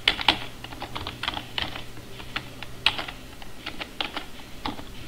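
Computer keyboard typing: an uneven run of single key clicks with short pauses between them, over a faint steady low hum.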